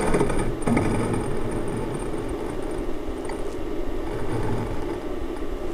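A steady low mechanical drone, like a running motor, with a few light clicks in the first second.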